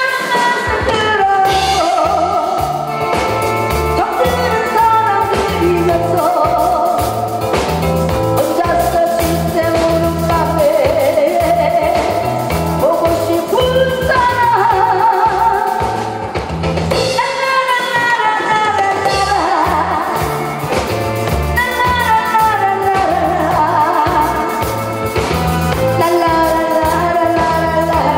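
A woman singing through a microphone and PA over accompaniment with a steady drum beat and bass, her voice held in long notes with vibrato. There is a brief pause between phrases a little past the middle.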